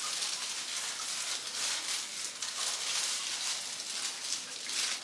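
Hands working hair colour through hair: a steady crackling, rustling hiss made of many fine ticks.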